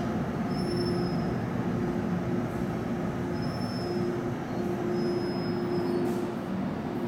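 MTR underground train passing through the station behind platform screen doors: a steady rumble of wheels and running gear with a steady hum. Several brief high-pitched wheel squeals come and go.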